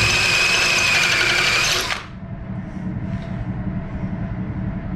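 DeWalt cordless drill running flat out with a steady high whine for about two seconds as it drills into steel angle, then stopping abruptly. A quieter low steady hum carries on after it.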